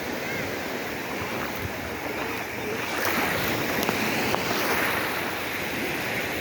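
Ocean waves breaking and washing in, a steady rushing that swells about halfway through.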